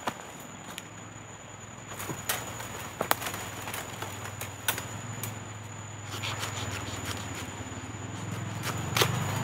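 Dry bamboo twigs and leaf litter snapping and crackling as someone pushes into a bamboo clump to reach a shoot at its base: a few scattered sharp cracks, the loudest about three seconds in and near the end. Under them a low steady hum grows louder from about six seconds in.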